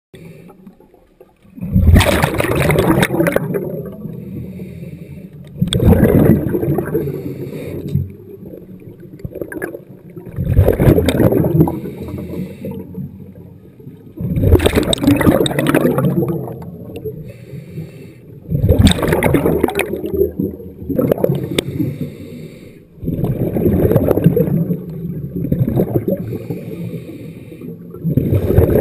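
Scuba diver's regulator exhaust heard underwater: a loud rush of exhaled bubbles about every four seconds, seven times, quieter between breaths.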